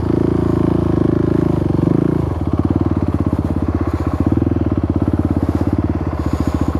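Husqvarna 701's single-cylinder four-stroke engine running. Its note is steady at first, then drops about two seconds in to a slower, pulsing beat that holds to the end.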